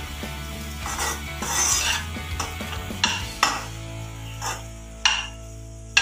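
Fried rice being stirred and tossed in a non-stick kadai with a spatula: scraping and shuffling, then several sharp knocks of the utensil against the pan in the second half.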